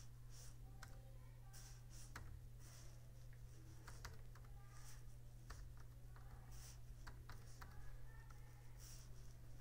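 Faint, irregular keystrokes on a computer keyboard as a word is typed, over a steady low hum.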